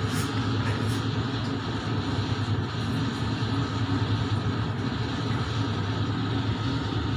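Steady low hum of running kitchen machinery, with a few faint steady tones above it and a couple of light clicks in the first second.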